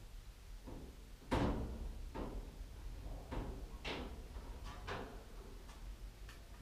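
A door being opened: a loud bang about a second in, then several lighter knocks and clicks over a low hum.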